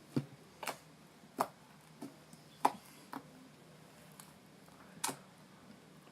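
Slime being pressed and played with, giving sharp little popping clicks at irregular intervals, about seven in a few seconds.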